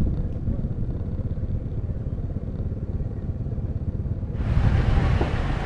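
Motorcycle engine running with a steady low rumble while rolling at parade pace. About four seconds in, a brighter outdoor hiss comes in.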